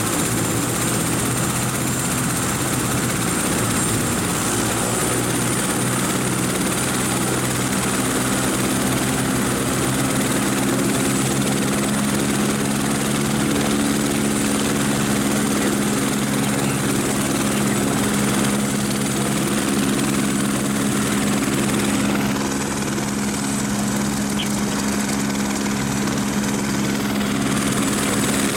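Light helicopter running on the ground, with steady low rotor and engine tones and a thin high whine.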